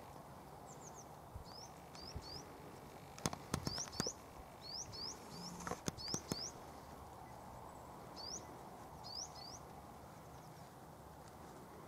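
A small bird calling repeatedly: short high chirps, mostly in twos and threes, over a faint outdoor background. A few sharp clicks stand out near the middle.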